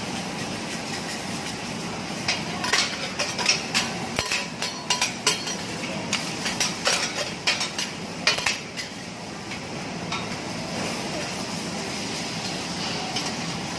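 Metal teppanyaki spatulas clacking and scraping on a hot griddle in a quick, irregular run of sharp clanks, over a steady hiss of food cooking on the plate.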